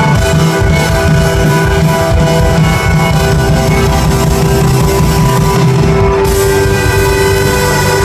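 Live indie rock band playing, with trumpet, violin, keyboards and drums, recorded loud from within the audience. About six seconds in, a bright hiss fills in over the music.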